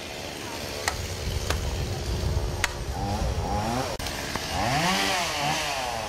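Chainsaw's small two-stroke engine running low, then revving up and dropping back, briefly about three seconds in and more strongly around five seconds.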